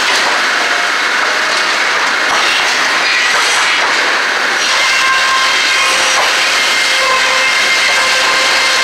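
Loud, steady sawmill machinery din: the chain conveyors of a lumber sorting table running and rattling, with a few light knocks of boards.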